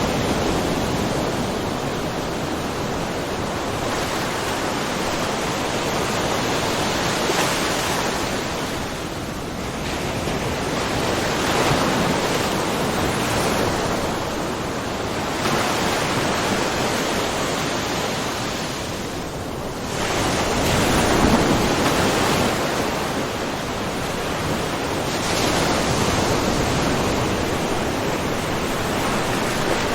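Small ocean waves washing into a rocky cove, a steady rush of surf that swells every few seconds as each wave breaks and splashes, the biggest about two-thirds of the way through.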